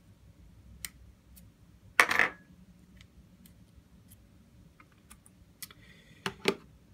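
Small clicks and taps from handling an opened iPhone 6s and small repair tools on a desk, with a brief scrape about two seconds in and a couple of sharper clicks near the end.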